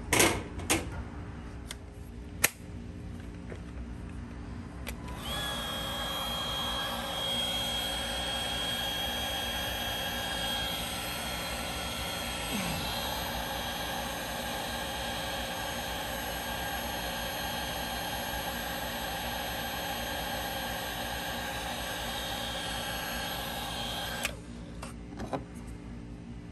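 Milwaukee cordless heat gun running steadily, its fan blowing with a steady whine, shrinking the tubing on a crimped heat-shrink eye connector. It starts about five seconds in and cuts off suddenly near the end, after a few knocks at the start.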